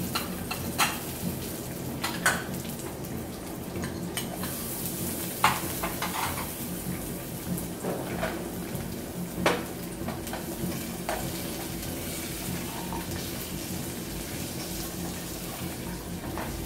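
Chopped nuts frying gently in a little ghee in an aluminium pot, with a faint steady sizzle. Several sharp clinks of a metal spoon and spatula against the pot as dried dates are added and the pieces are stirred.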